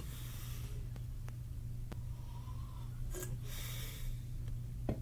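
A man breathing out hard through his nose twice, once at the start and again about three and a half seconds in. Under it runs a steady low hum, with a few faint clicks.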